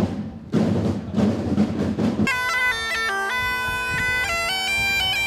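Drum beats, then about two seconds in a bagpipe strikes up: a steady drone under a stepping chanter melody.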